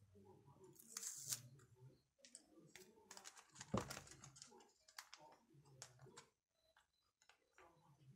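Quiet rustling and clicking of plastic binder sleeves and photocards being handled and pages turned, with a sharper click about four seconds in.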